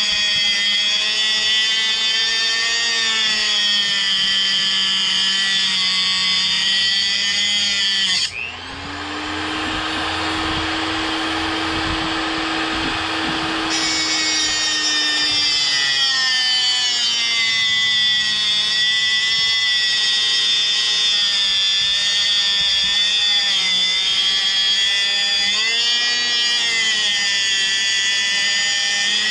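Small 3-inch angle grinder grinding the steel bayonet lug off an AR-15 barrel, a steady high whine with metal grinding. About eight seconds in the motor briefly speeds up, with higher pitch and lighter contact, then slows back down over several seconds as it bears on the steel again.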